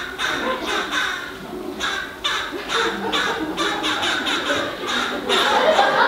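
Human voices imitating birds in short squawks and caws, several a second, for a row of bird puppets. Audience laughter grows louder near the end.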